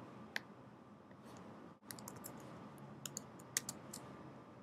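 Faint keystrokes on a computer keyboard as a short command is typed: a single click near the start, then small groups of clicks about two and three seconds in.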